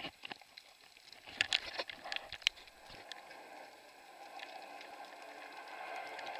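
Water noise picked up underwater through a camera's waterproof housing. Sharp crackles and clicks come in a cluster in the first half, then settle into a steady muffled hiss that slowly grows louder.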